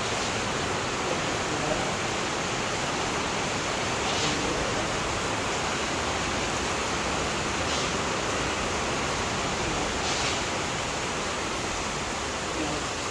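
Steady hiss with no clear pitch, with three faint brief swishes about four, eight and ten seconds in.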